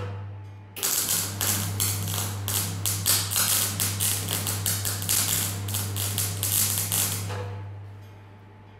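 MIG welding arc crackling and sputtering in quick pulses as steel is welded. It breaks off briefly at the start, resumes about a second in, and stops about seven seconds in, leaving a steady low hum.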